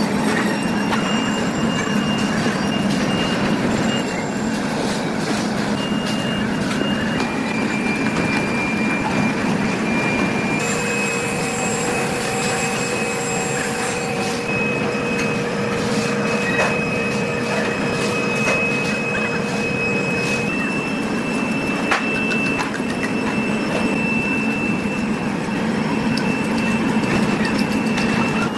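Steady heavy-factory machinery noise: a rumble with a thin high whine on top. The whine and the mix change abruptly several times.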